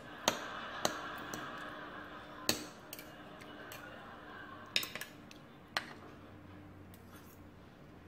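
Metal spoon and fork clinking and scraping on a ceramic plate while eating, with about six sharp clinks spread through and a steady hiss in the first three seconds.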